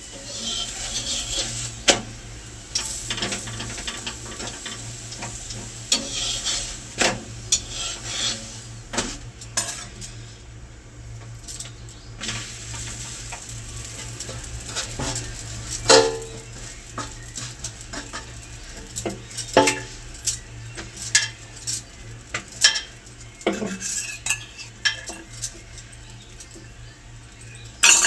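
Kitchen work: metal utensils and pans clinking and knocking irregularly, with a faint low steady hum beneath.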